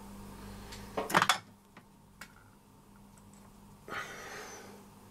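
Handling noise at a modelling workbench during soldering work: a quick cluster of clicks and rustling about a second in, two faint ticks, and a short rustle near the end, over a steady low electrical hum.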